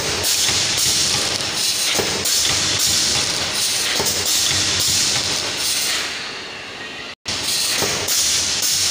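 Vertical form-fill-seal pouch packing machine with a cup filler running, a steady mechanical hiss and clatter with regular knocks about once a second from its cycling sealing jaws. The sound dips and cuts out for a moment about seven seconds in, then resumes.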